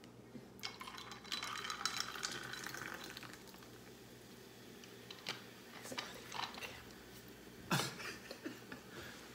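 A dark drink over ice fizzing and crackling in a glass for a couple of seconds, then scattered light clinks of ice and glass, with one louder knock of the glass near the end.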